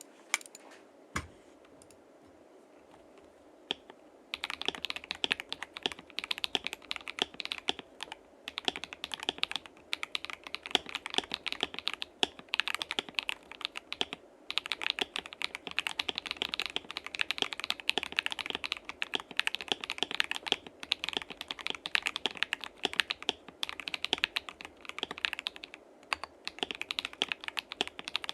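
Continuous fast typing on a mechanical keyboard with lubed Akko CS Lavender Purple tactile switches, in a gasket-mounted KBD67 Lite case with a polycarbonate plate and sound dampening. A couple of single key clicks come first, and steady typing starts about four seconds in.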